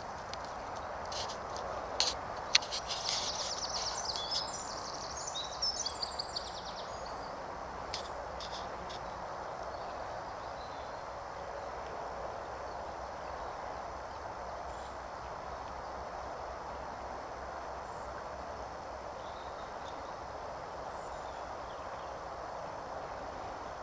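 Steady rush of flowing river water, with a small bird singing a quick run of high chirps a few seconds in. Two sharp clicks about two seconds in are the loudest sounds.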